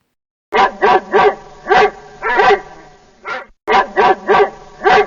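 Dog barking: a run of six barks starting about half a second in, then after a short break the same run of barks begins again.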